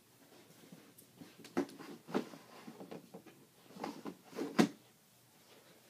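A few separate knocks and thumps from someone moving about the room, the loudest near the end, over quiet room tone.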